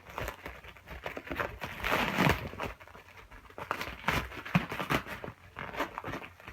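Packaging crinkling and tearing as a wrapped wheel is unpacked from its box, with a few sharp knocks and clicks.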